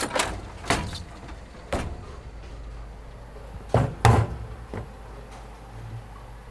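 A series of irregular knocks and bangs, the loudest two close together about four seconds in, over a steady low hum.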